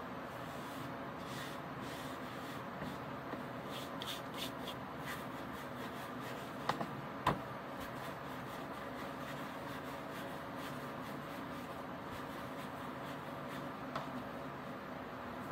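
Hands rolling a rope of dough back and forth on a granite countertop: soft rubbing over a steady background hum, with two light knocks about seven seconds in.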